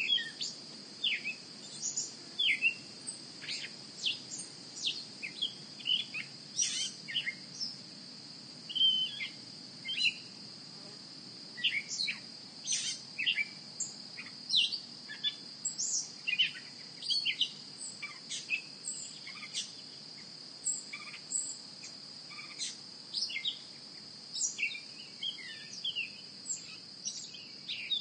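Outdoor nature ambience: many short bird chirps and calls scattered over a steady, high-pitched insect drone.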